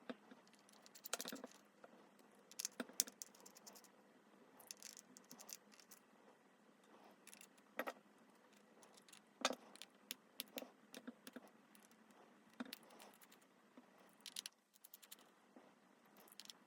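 Faint, irregular clicks, ticks and light scraping of small tools against the small metal parts of a Galaxy Z Flip 4 hinge as it is taken apart, with a few sharper clicks scattered through.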